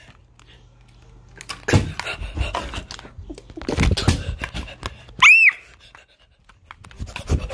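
A person voicing a hyperactive puppet: two bursts of rapid, breathy noise, then one short high-pitched squeal that rises and falls about two-thirds of the way through.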